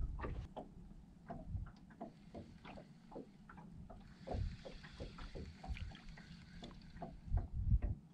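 Small waves lapping and slapping against a bass boat's hull in many irregular little knocks, over a low wind rumble. A few heavier thumps come about four seconds in and again near the end.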